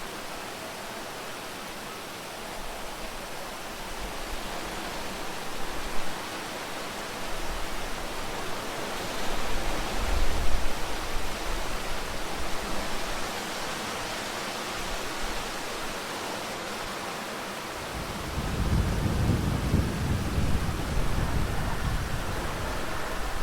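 Steady rain hiss with rolls of low thunder, one near the middle and a longer, stronger one about three-quarters of the way through.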